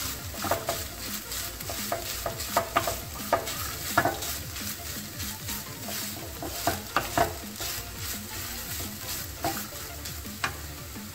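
A wooden spoon stirring grated coconut as it dry-roasts in oil in a kadai: irregular knocks and scrapes of the spoon against the pan over a faint sizzle.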